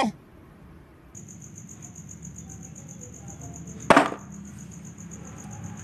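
Crickets chirping in the background, a high, fast-pulsing trill that starts about a second in. About four seconds in there is one sharp knock as toy animals are handled in a plastic basket.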